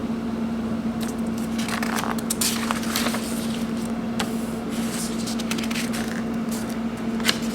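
Rustling and crinkling of a handled paper instruction sheet and kit packaging, in scattered bursts, over a steady low hum.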